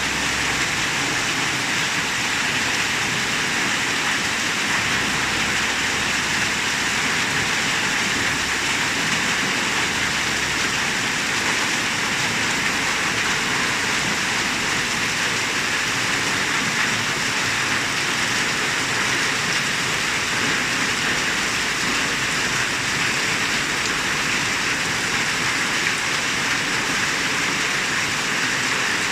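Steady rain shower falling and pattering on surfaces.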